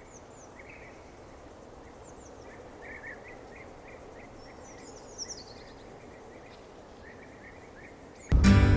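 Faint outdoor ambience with small birds chirping, many short repeated calls and a few higher, quick down-sweeping notes. Near the end, strummed acoustic-guitar music starts abruptly and loudly.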